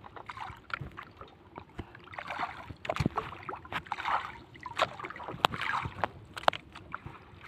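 Water sloshing and washing against a small wooden outrigger boat's hull and bamboo outrigger float, swelling in waves a few times, with scattered sharp clicks and knocks.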